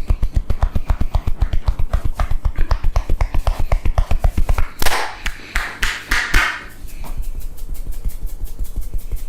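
Rapid, even tapping of a barber's hands on the head during a head massage, about eight light slaps a second, stopping about five seconds in; a few short rubbing strokes follow.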